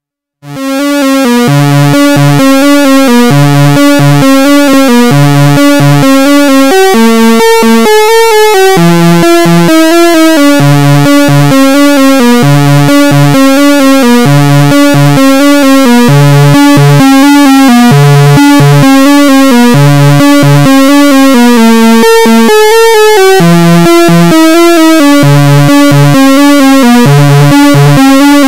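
Behringer Crave analog synthesizer playing a looping sequenced pattern: short, repeating low notes pulsing under sustained higher notes that change pitch every few seconds. It starts abruptly about half a second in.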